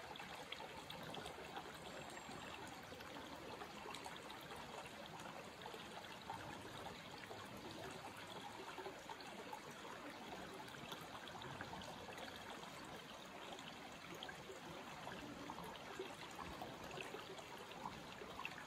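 Faint, steady trickle of a small stream or creek running over rocks.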